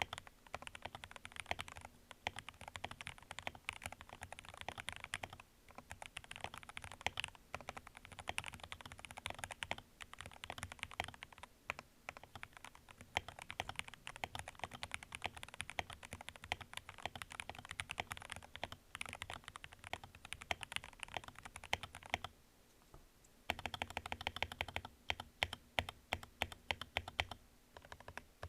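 Fast typing on an RK G68 mechanical keyboard with lubed Gateron Milky Yellow linear switches and PBT keycaps, a dense run of key clacks. About 22 seconds in the typing stops briefly, then the stabilized long keys are pressed over and over, with a deeper sound.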